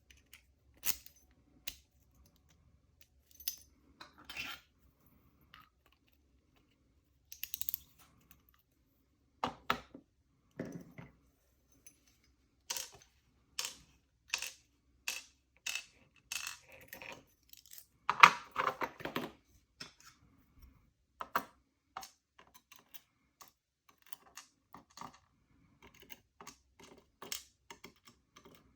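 Small metal pin-tumbler lock parts from a Sargent lock cylinder being taken apart: scattered clicks and short clatters as pins and parts are handled and dropped, with the loudest clatter about 18 seconds in.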